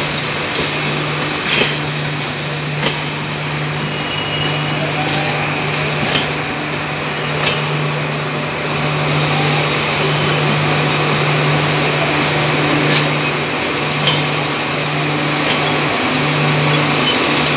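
Passenger coaches of an express train rolling past on the adjacent track: a steady rumble of steel wheels on rail with a low hum, broken by a few sharp wheel clacks a second or more apart.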